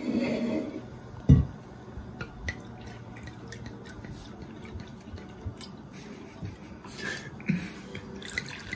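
Sake poured from a glass bottle into small porcelain cups, a thin trickling pour. A single sharp knock about a second in.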